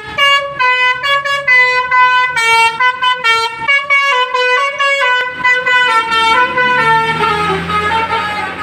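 Basuri telolet bus horn playing a quick tune of stepped notes. A low steady hum joins from about six seconds in.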